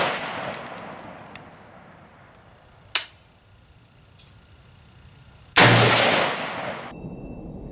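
DPMS Oracle AR-15 rifle firing 5.56 mm rounds. An earlier shot's echo is dying away at the start, a short, sharp crack comes about three seconds in, and a full shot about five and a half seconds in rolls on for over a second before it cuts off suddenly.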